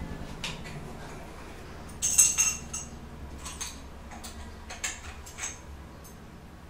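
Chrome-plated metal parts of a toilet flush valve's handle assembly clinking and clicking against each other as they are handled and taken apart in gloved hands: a scattering of short knocks, the loudest cluster about two seconds in.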